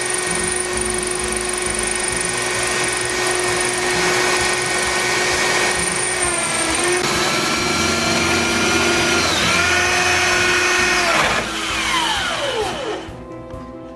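Electric drill running at steady high speed while drilling mounting holes in a wall. Its pitch dips briefly twice, then the motor winds down to a stop near the end.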